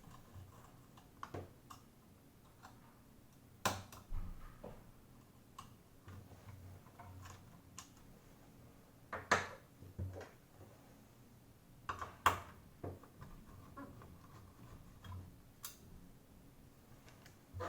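Irregular sharp clicks and light knocks of small tools, screws and plastic case parts being handled while an oscilloscope is taken apart, with the loudest knocks a little after 9 seconds and around 12 seconds.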